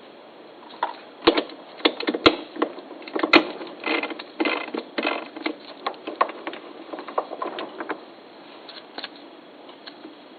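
Metal clicks and clanks of a chuck key turning in a small lathe's chuck, with the jaws loosening to release a deer-antler workpiece. The clicks come in an irregular run and thin out after about eight seconds.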